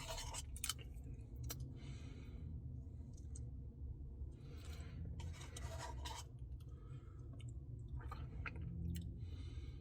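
Faint eating sounds from a Dairy Queen Blizzard: several short scrapes of a spoon in the cup and a few small clicks, spaced a second or two apart.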